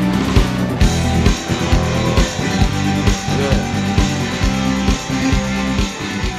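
Rock song playing: a steady drum beat of about two strokes a second under bass and electric guitar.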